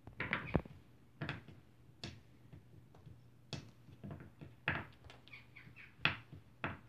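A small crow pecking at and shoving the balls of a wooden treat-puzzle board: irregular knocks and rattles of wood on wood, some in quick runs, the loudest near the start and about six seconds in.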